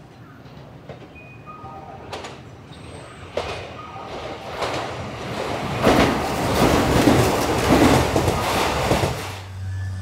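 Kintetsu electric train running through the station without stopping. Its wheel noise builds, is loudest from about six seconds in with a rapid clatter over the rail joints, and drops off suddenly about a second before the end as the last car passes.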